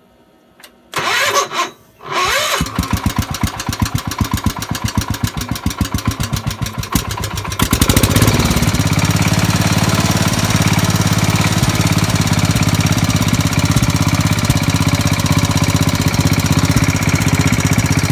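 Gravely Pro Master 50's Kohler K341 16 hp single-cylinder engine starting after a short burst of cranking and chugging at a slow, loping idle, then throttled up about eight seconds in to a steady fast run. It is breathing through a newly fitted new-old-stock muffler.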